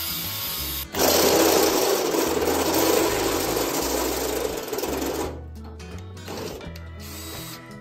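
A cordless drill boring into the car body's sheet metal, loud and steady from about a second in, then quieter and stop-start over the last couple of seconds; in the first second an angle grinder runs on metal. Background music with a changing bass line plays under it.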